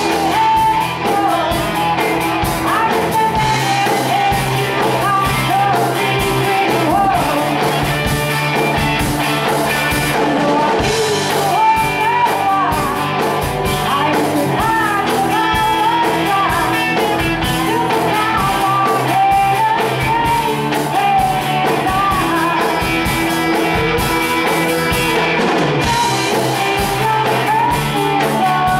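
Live rock band playing, with a woman singing lead over electric guitars, keyboard and drums.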